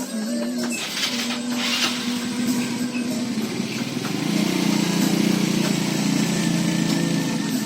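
A small engine running steadily, growing louder about four seconds in.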